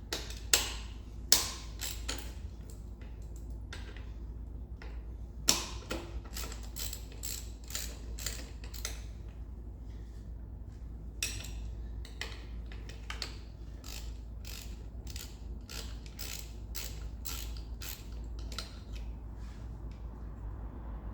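Socket ratchet clicking in quick runs as bolts holding a bracket on the engine's inlet are undone. There are a few louder metal knocks in the first six seconds.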